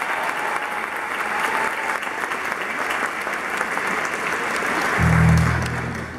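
Theatre audience applauding, a dense steady clapping that thins out near the end. About five seconds in, a low droning hum comes in for just over a second and is the loudest thing heard.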